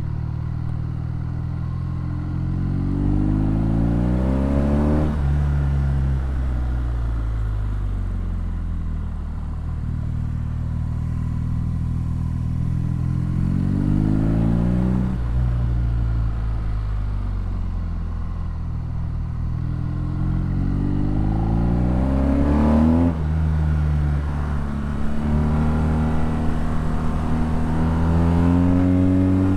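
BMW R nineT's boxer twin through an Akrapovic exhaust, accelerating hard. The engine's pitch climbs and drops sharply at three upshifts, about five, fifteen and twenty-three seconds in, then climbs again near the end.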